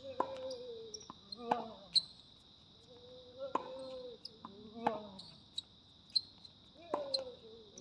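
Tennis balls being struck by rackets and bouncing on a hard court during a rally, a sharp pock every half second to second. Behind it, insects drone in a steady high hum.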